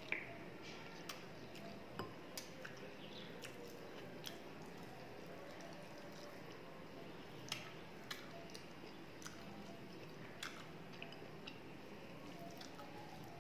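Close-up eating sounds of a person eating rice and mutton curry by hand: chewing and mixing rice with curry on a plate, with scattered short sharp mouth clicks and smacks.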